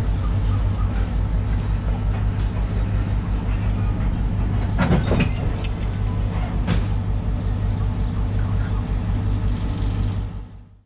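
Diesel train engine running with a steady low drone as the passenger train creeps along the platform, heard from the carriage. There is a brief clatter about five seconds in, and the sound fades out just before the end.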